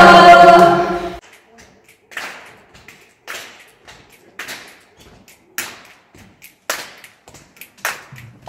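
A group of voices singing a cappella breaks off about a second in; then hands clap a slow, even beat, about one sharp clap a second with softer claps in between.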